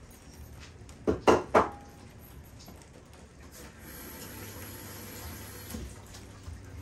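Three sharp knocks in quick succession about a second in, then liquid pouring steadily into a cooking pot for about two seconds.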